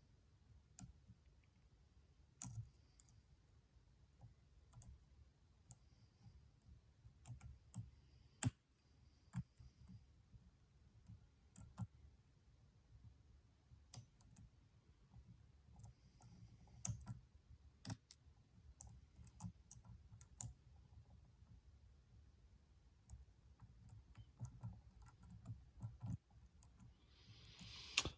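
Faint, irregular clicks and light scrapes of a lock pick and tension wrench working the pins of a Stanley padlock, with a few sharper clicks scattered through.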